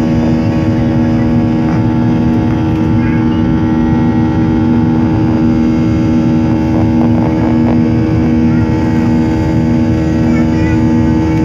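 Jet airliner's turbofan engines heard from inside the passenger cabin during the climb just after takeoff: a loud, steady drone with a strong low hum.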